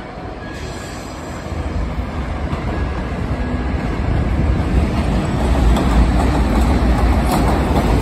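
An R142 subway train rolling over the steel elevated structure as it comes around the curve and into the station. The rumble grows steadily louder as the cars draw alongside.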